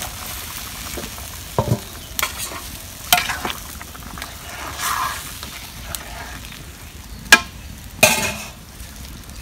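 A steel spoon stirring a soya chunk curry sizzling in a karahi, with scrapes and sharp metal-on-metal knocks of spoon and lid against the pan and a steel bowl; the sharpest knock comes a little past seven seconds in.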